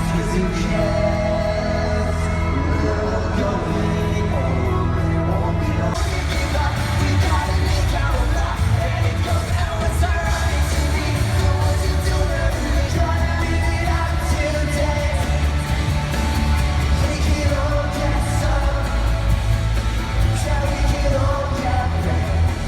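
Live pop-rock band playing a song with singing, loud, amplified through an arena sound system. The band sound fills out, brighter and fuller, about six seconds in.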